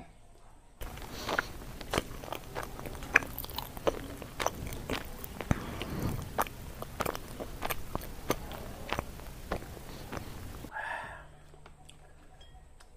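Close-miked chewing of sweet potato leaves, a run of wet crunches and sharp mouth clicks, several a second. It starts about a second in and stops abruptly near the end.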